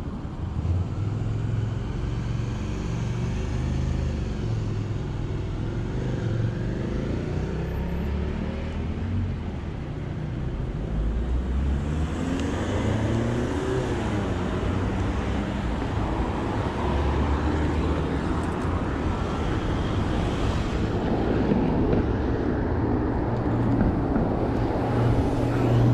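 Road traffic going past a moving bicycle: car engines and tyres, their pitch rising and falling as they pass, louder from about halfway through. Under it runs a low wind rumble on the chest-mounted microphone.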